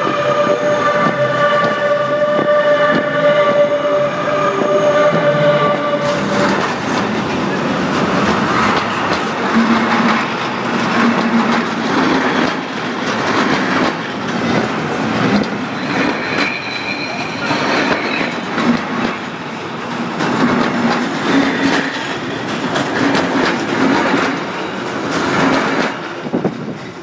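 Freight train rolling directly over the microphone lying between the rails. A steady high whine for the first six seconds, then loud wheel-on-rail rumble with rhythmic clatter of the wheels and brief squeals, falling away near the end as the last wagon clears.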